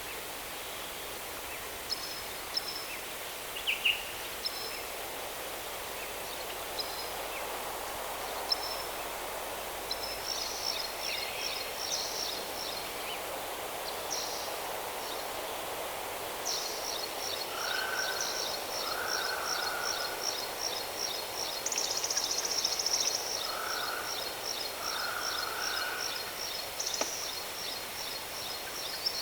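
Waterfall rushing steadily, with birds chirping in short high calls. About halfway through, a fast, continuous high trill sets in and runs to the end, with a few lower calls over it.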